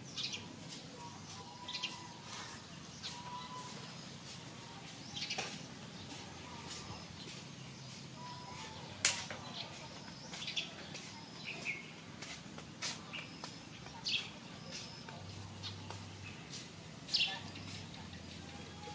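Outdoor ambience: short, scattered bird chirps over a steady hiss and a faint high, steady whine, with one sharp click about nine seconds in.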